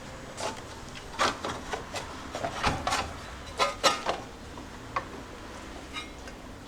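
Clamped intake pipe parts being worked onto the engine's intake inlets by hand: a string of irregular clicks, knocks and rubbing of plastic and metal.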